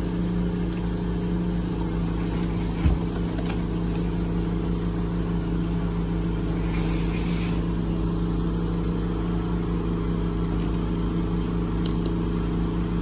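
Cat mini excavator's diesel engine running steadily at a constant pitch, with a single sharp knock about three seconds in.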